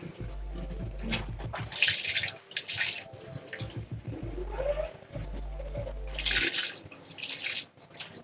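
Water running or splashing in two bursts, one about two seconds in and one about six seconds in.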